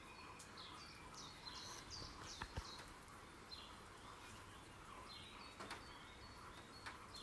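Faint songbird chirps: short falling notes repeated every second or so, over a steady soft hiss, with one soft click about two and a half seconds in.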